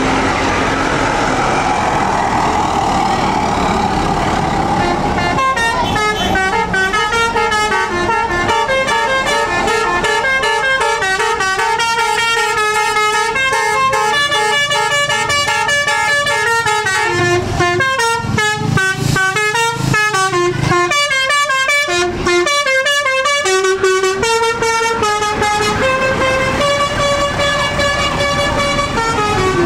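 Bus 'telolet' musical air horn (Basuri type) playing a tune of held notes that step up and down in pitch, with quick note changes in the middle. It comes in about five seconds in, after rushing noise.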